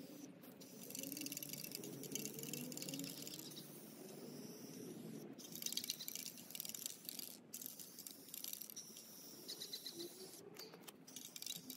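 Faint hiss of an aerosol can of Rust-Oleum gloss enamel spray paint being sprayed in three bursts of one to two and a half seconds each.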